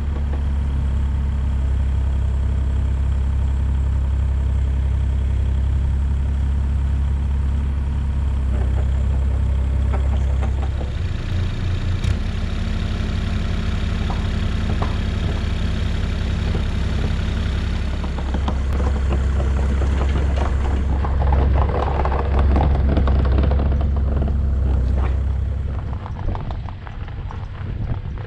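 Kubota KX40 mini excavator's diesel engine running close by, a steady low drone with clatter over it. The engine note changes about twelve seconds in, and the sound drops off somewhat near the end as the machine moves away.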